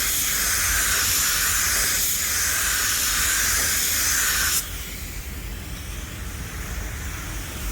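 Paint spray gun hissing as it sprays matte clear coat onto a textured test panel, with a few slight dips, then cutting off sharply about four and a half seconds in. A quieter steady hum carries on after it stops.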